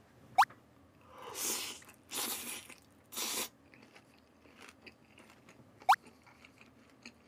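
A person chewing a mouthful of soft tteokbokki rice cake in sauce. Three noisy, breathy mouth sounds come in the first few seconds, then faint chewing. Two very brief rising squeaks come about half a second in and again near six seconds.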